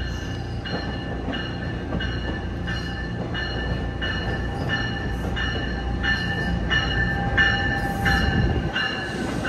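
New Jersey Transit MultiLevel commuter train entering the station: its bell rings in steady strokes, about one and a half a second, over the low rumble of the train. The sound grows louder near the end as the cab car draws alongside.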